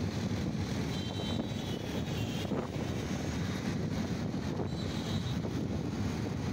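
Steady rumble and rush of a moving train, heard from on board, with faint high whining tones coming and going twice.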